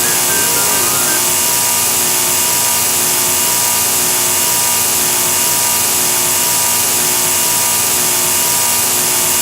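Loud, steady harsh noise, a hiss strongest in the highs with steady tones running through it and no change over the whole stretch: a faulty, distorted audio output.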